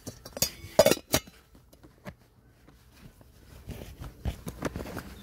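Metal and glass camp cook-kit items, a stainless steel pot, glass sauce bottle and metal tongs, clinking and knocking as they are handled in a bag. A few sharp clinks come in the first second or so, then quieter rustling and small knocks.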